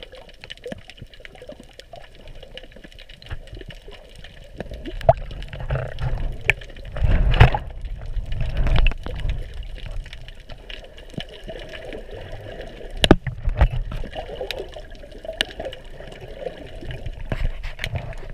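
Water heard from underwater: muffled sloshing and rumbling of moving water with many scattered clicks and knocks. Louder low surges come about seven seconds in and again around thirteen seconds.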